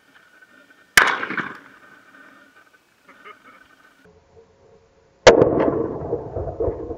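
Two 7.62x51mm rifle shots with M80A1 EPR bullets, about four seconds apart, each a sharp crack trailing off in echo. The second is the shot that strikes the composite armor plate and is followed by a longer, uneven tail.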